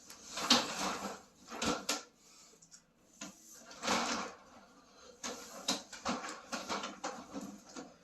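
Accordion closet door hardware being handled and fitted: a series of knocks, clacks and rattles, with a louder clack about half a second in and another near four seconds, then a run of smaller clicks.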